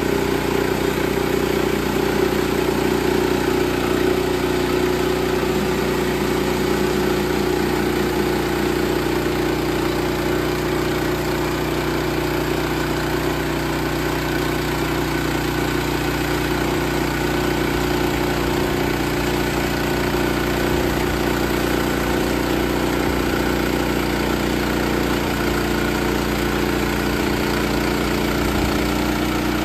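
Sawmill's gasoline engine running steadily at a constant speed.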